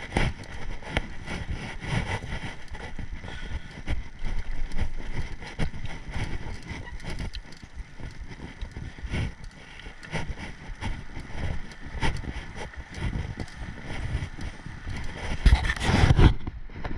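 Mountain bike riding over a rough dirt trail: steady rattling and knocking from the bumps, with wind noise on the microphone. A heavier burst of knocks comes near the end and then drops away suddenly.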